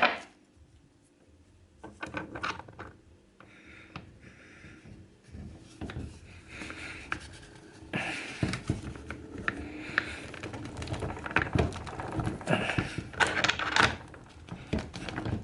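Handling noise of a socket being fitted onto a cordless impact wrench's anvil: irregular clicks, knocks and rubbing of metal and plastic parts, starting about two seconds in.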